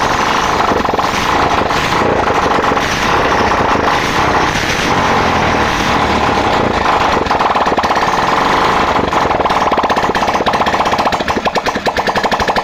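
Hero Glamour motorcycle's single-cylinder engine running steadily on its newly fitted carburettor, with its firing pulses growing more distinct near the end. The engine has started: the starting problem is cured.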